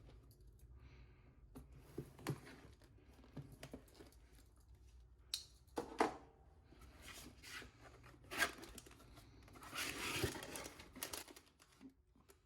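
Cardboard Lego set box being opened by hand: tearing, scraping and handling noises in irregular bursts. The sharpest come about six and eight and a half seconds in, and a longer rustle follows around ten seconds in.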